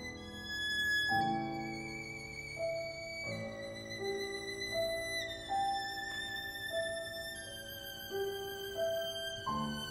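Violin and grand piano playing classical music: the violin holds long high notes with vibrato, stepping down slowly in pitch, over a piano accompaniment of repeated notes, with new piano chords about a second in and near the end.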